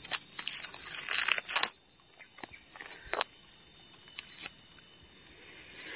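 A steady, high-pitched insect chorus. For the first second or two it is joined by crackling rustles of dry leaves as a fallen durian covered in dead leaves is picked up and handled, followed by a few faint clicks.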